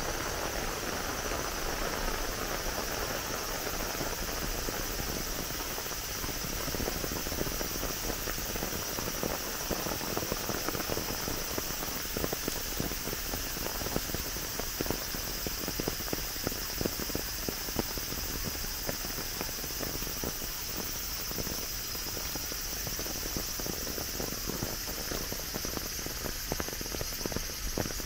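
A steady, high-pitched chorus of insects over an even hiss, with many soft, irregular taps underneath.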